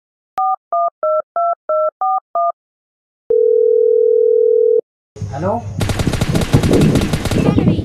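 Mobile phone keypad dialing: seven quick touch-tone beeps, then a single steady tone of about a second and a half. About five seconds in, a fast-pulsing phone ring starts alongside a voice saying hello.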